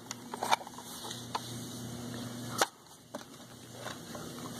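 A few light clicks and knocks from plastic toy blasters being handled, the sharpest about two and a half seconds in, over a faint steady low hum.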